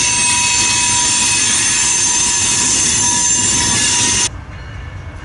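Freight train rolling past close by: steady clatter and rumble of the cars' wheels on the rails, with a high, steady squeal from the wheels. About four seconds in it cuts off abruptly, giving way to a much quieter rumble.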